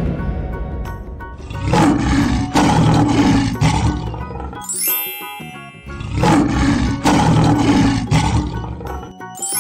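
Cartoon big-cat roars, a tiger or lion sound effect, heard twice, each roar about three seconds long, over light children's background music.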